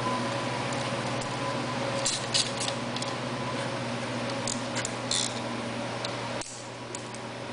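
Small sharp clicks and rattles of parts being handled as the rectifier is fitted back onto the generator, in two short clusters. Under them a steady hum runs and cuts off suddenly about six and a half seconds in.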